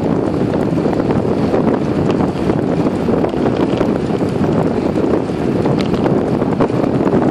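Wind buffeting the microphone of a camera mounted on a moving bicycle: a loud, steady rumble with scattered faint ticks.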